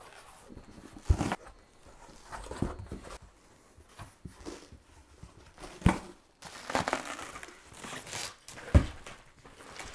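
A cardboard shipping box being opened by hand: tearing and crinkling of tape and packaging, with a few sharp knocks as the box is handled.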